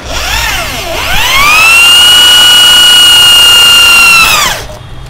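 Electric drill boring through an engine intake part taken off the car, drilled off the engine for an LPG fitting so the shavings stay out of the engine. The motor's whine drops in pitch about a second in, then rises and holds steady before winding down near the end.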